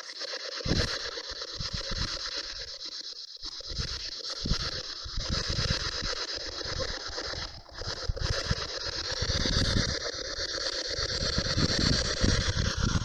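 SB11 spirit box sweeping rapidly through radio stations, giving a steady hiss of static, with irregular low rumbles underneath.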